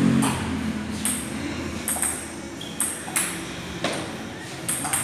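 Table tennis ball clicking off paddles and the table during play, about eight sharp pings at uneven spacing.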